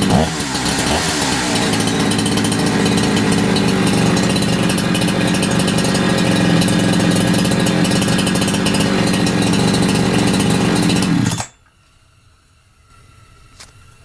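Holzfforma G372XP two-stroke chainsaw (a Husqvarna 372XP clone) running steadily on its freshly tuned low-speed and idle circuit after a brief change in engine speed at the start. It cuts off abruptly about eleven seconds in, leaving only a couple of faint clicks.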